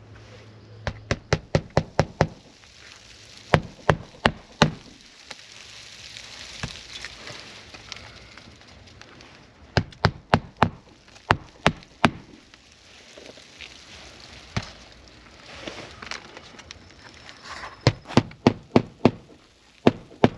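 Hammer driving roofing nails into asphalt shingles, in bursts of quick sharp strikes with short pauses between.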